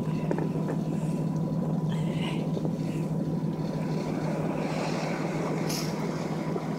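Steady low drone of a ship's machinery, with a rushing noise over it and a faint higher whine.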